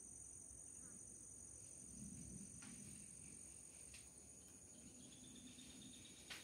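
Faint steady high-pitched drone of insects, held on two unbroken tones, with a few faint clicks from the brush.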